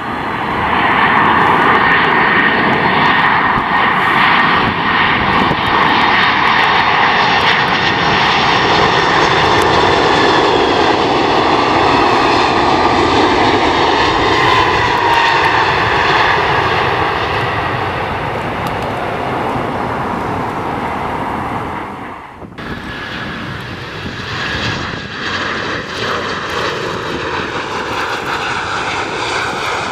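Jet engines of a four-engined Boeing 747 landing: a loud rush with a whine that slowly eases as it slows down. About two-thirds through the sound cuts off abruptly and a quieter twin-engine jet airliner is heard landing.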